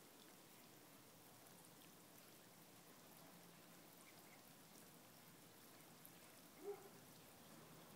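Faint, steady hiss of water spraying from a garden hose nozzle onto the grass and a cat. A brief pitched sound stands out about two-thirds of the way through.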